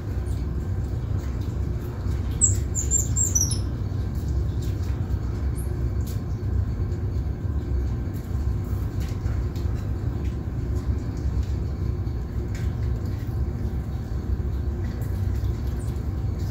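A quick run of about half a dozen short, high, falling chirps from emperor tamarins, a couple of seconds in, over a steady low rumble.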